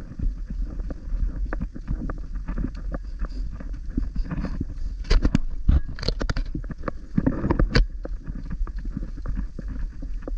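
Wind buffeting the camera's microphone as a steady low rumble, with footsteps and scuffs on a dirt and stone hiking trail as irregular knocks, a few louder ones past the middle.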